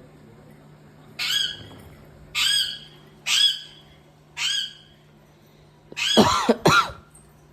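Cat meowing: four short calls about a second apart, then two longer meows near the end that slide down and back up in pitch.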